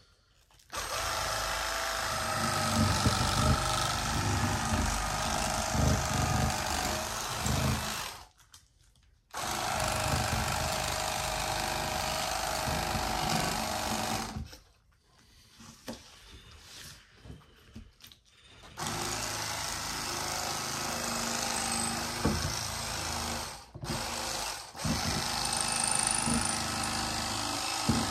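Cordless battery-powered electric fillet knife running as it cuts through a fish, its reciprocating serrated blades buzzing with a steady whine. It runs in three long stretches: from about a second in to about 8 s, again from about 9 s to 14 s, and from about 19 s onward with two brief dips. The pauses between stretches hold small handling clicks.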